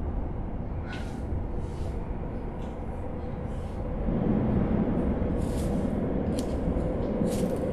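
A steady low rumble, a little louder in the second half, with faint short rustles every second or so as fingers work a knot of braided rope tied around a handrail.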